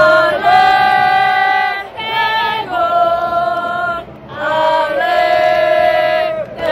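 Football supporters singing a chant together in long held notes, in four phrases with short breaks for breath.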